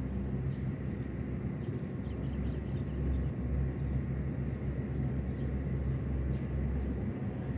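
Steady low engine rumble from distant motor traffic or machinery, an even hum with no clear change.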